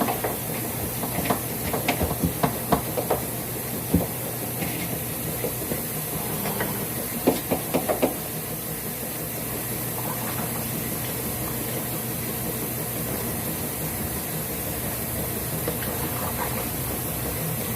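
A steady hiss with a series of sharp knocks and clatters in the first half, as items are handled while a refrigerator is cleaned out.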